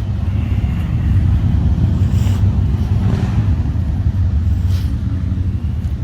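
A loud, steady low rumble that wavers in level, with faint brief higher noises over it.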